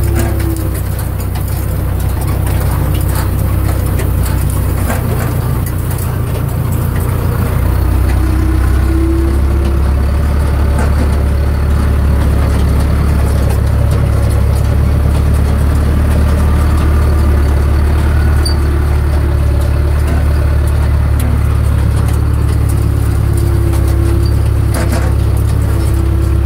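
Tractor engine running steadily under load, driving a Mengele loader wagon's pickup as it gathers cut clover, heard from the cab; the engine note gets louder about eight seconds in, with scattered light rattles from the machinery.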